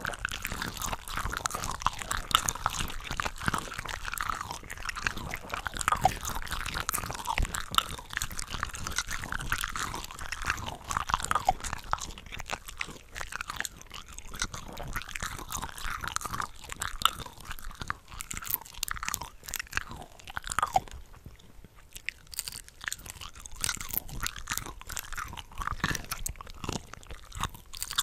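Close-miked chewing and biting of cooked shrimp from a shrimp cocktail platter, with dense, irregular wet smacks and crunchy clicks. Several eating tracks are layered over each other, and the sound thins briefly a little after two-thirds of the way through.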